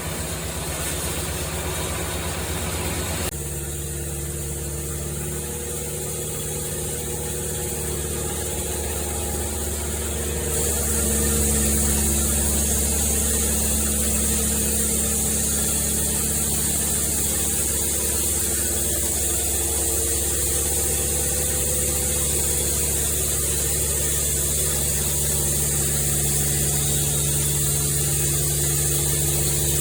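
Sawmill machinery running steadily with a low engine hum. About ten seconds in a steady high hiss joins and the sound gets a little louder.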